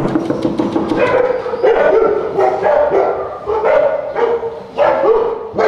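Dogs barking repeatedly inside a flat, heard through its closed steel front door, answering a knock on the door at the start.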